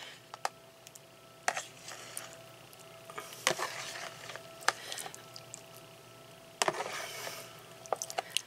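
Metal spoon scraping and knocking against a plastic mixing bowl while thick, creamy soup mixture is worked out of it into a casserole dish, with soft wet plops. The scrapes and taps come in short irregular clusters.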